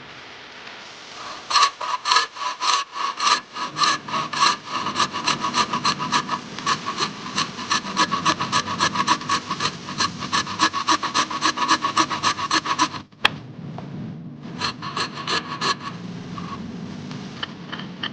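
Hand saw cutting wood in quick, even back-and-forth strokes, several a second, with a short pause about three-quarters of the way through before sawing resumes.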